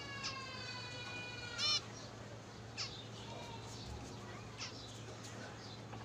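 Zebra finches calling: one long held note for about a second and a half ends in a short, louder wavering note. Three short falling chirps follow, spread over the next few seconds.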